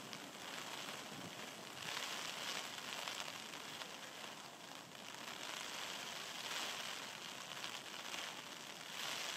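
Steady rain falling, an even hiss that swells and eases every few seconds.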